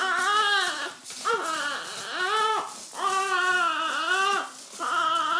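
An infant crying: about six long, high-pitched wails in a row, each rising and falling, with short breaths between them.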